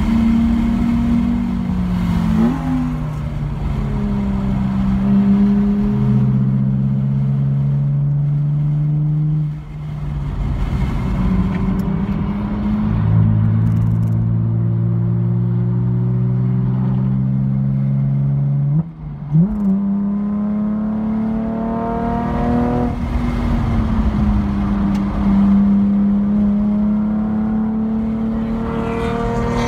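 Car engine heard from inside the cabin on a track lap, pulling hard and changing gear. Its pitch steps down several times as the car slows for a corner, with a sharp dip and blip about two-thirds through. It then climbs steadily as the car accelerates out.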